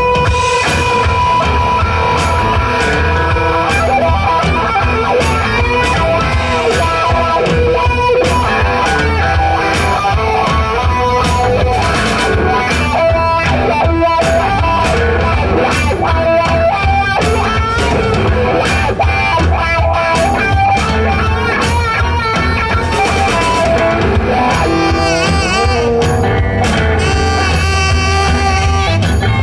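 Live rock band playing an instrumental passage without vocals: electric guitars, upright bass and drum kit, with sustained lead notes over a steady beat.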